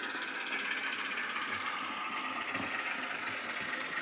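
Sound-fitted model Heljan Ruston PWM diesel shunter: its LokSound DCC decoder plays a steady diesel engine sound through the model's small onboard speaker as the locomotive runs.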